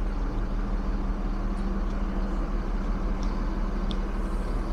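Steady engine rumble with a constant low hum, the kind of outdoor motor-vehicle noise heard along a busy roadside or work site.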